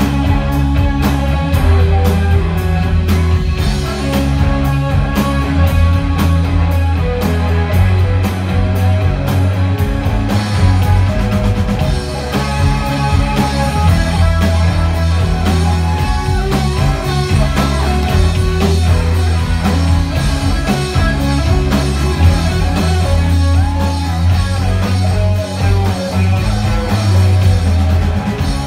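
Live rock band playing an instrumental passage without vocals: electric guitars over bass and drums, loud and continuous.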